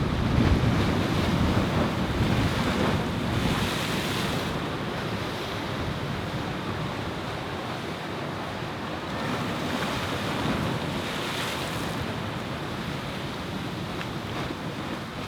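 Blizzard wind blowing in gusts, buffeting the microphone with a low rumble that swells and eases.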